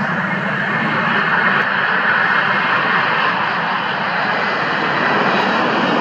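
Boeing 747 freighter's four jet engines at high power as the aircraft accelerates down the runway on its takeoff roll: a loud, steady jet noise that swells a little in the first couple of seconds.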